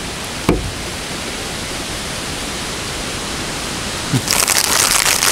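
Plastic bag rustling and crinkling loudly as a hand rummages in it, starting about four seconds in, over a steady background hiss. A single short knock about half a second in.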